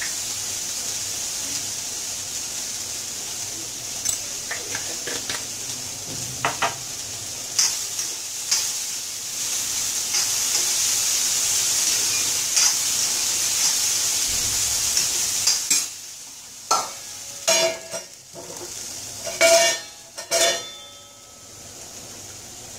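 Beans-and-carrot stir-fry sizzling in a wok while it is stirred with a metal spatula, with light taps of the spatula on the pan. About sixteen seconds in, the sizzle drops away and a few sharp metal clinks follow as a lid goes onto the wok.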